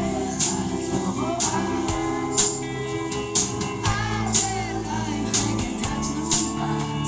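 A live rock band playing: electric guitar, keyboard and drums, with a sharp drum hit about once a second, and a woman singing in phrases over it.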